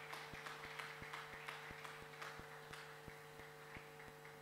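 A congregation applauding, the clapping thinning and fading out toward the end, over a steady electrical hum.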